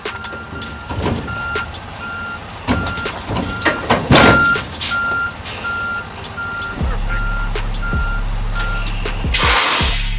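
A truck's backup alarm beeps steadily, about two beeps a second, over a diesel engine running low, with a few knocks in the first half. Near the end a loud burst of air hisses from the air brakes.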